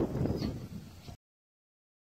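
Wind buffeting the microphone as a low rumble, then the sound cuts off abruptly to dead silence about a second in.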